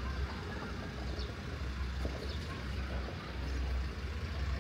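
Outdoor background noise: a steady low rumble with an even hiss above it, and a few faint short chirps.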